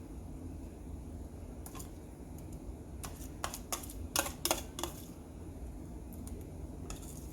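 Scattered light clicks and taps of a utensil against a dish or pan, most of them bunched together in the middle, over a steady low hum.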